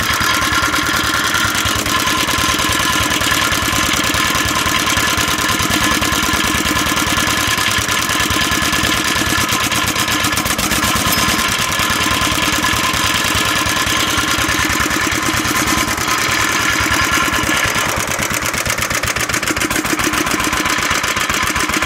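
1938 International Harvester LB 3-5 hp hopper-cooled, single-cylinder stationary engine running steadily after starting, with a rapid, even beat that does not let up.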